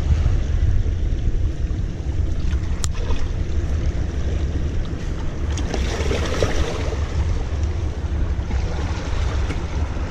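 Wind buffeting the microphone in a steady low rumble, over waves washing against breakwater rocks. A louder wash of water swells up about six seconds in, and a single sharp click comes near three seconds.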